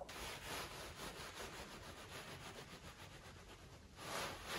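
Faint rustling and rubbing over a quiet hiss, slightly louder near the end.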